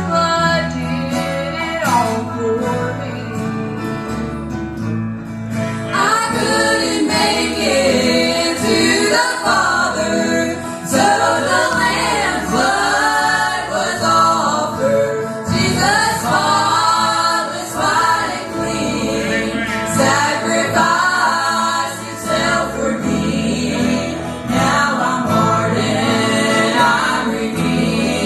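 Gospel group singing in harmony with guitar accompaniment; the voices come in fuller about six seconds in.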